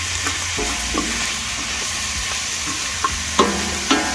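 Chopped onions and red pepper sizzling in rendered meat fat in a hot steel disco pan while a wooden spoon stirs them. The spoon scrapes and knocks against the steel a few times, most sharply near the end.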